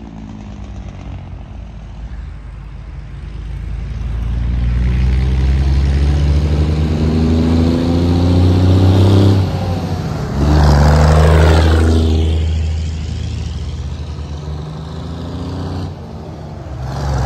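Heavy truck's diesel engine pulling hard and accelerating: its pitch climbs steadily, drops sharply a little past halfway and again near the end, then climbs once more. Passing cars' tyres join in.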